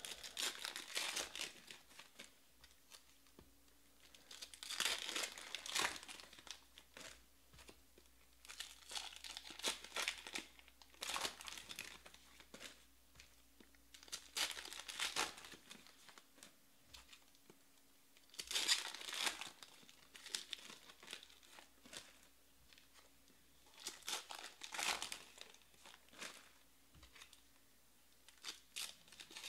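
Trading-card pack wrappers crinkling and tearing open in short bursts every few seconds, with cards being handled and slid between them.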